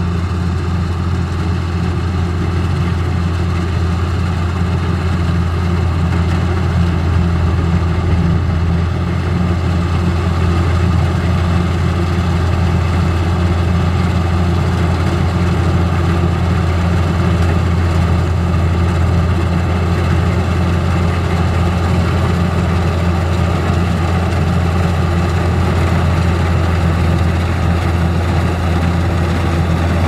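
Kubota DC105X combine harvester running steadily as it cuts rice: a constant deep diesel engine hum over the noise of its cutting and threshing gear.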